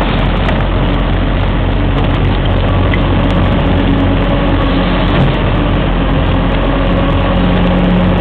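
Backhoe's diesel engine running steadily, its pitch rising and falling slightly a couple of times as it works.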